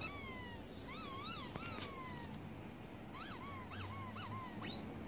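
Squeaks of a rubber-duck squeaky toy played through a laptop's small speaker: a string of high-pitched squeaks that glide up and down, a few longer falling ones first, then several short quick ones and one very high squeak near the end.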